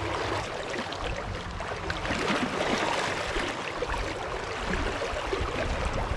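Rain-swollen river current rushing steadily through a shallow riffle.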